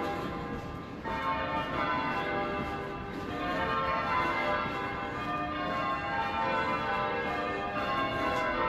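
Church tower bells being rung in changes (change ringing): overlapping bell notes struck one after another, each ringing on under the next.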